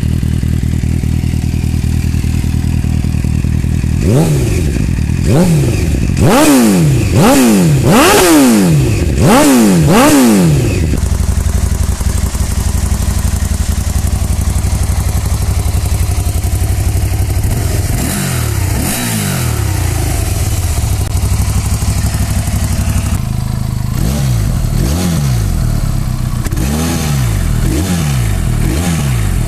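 Motorcycle engine idling, then revved in a run of quick throttle blips, each rising and falling in pitch. It settles back to idle, is blipped twice more, and near the end is revved in another run of short blips.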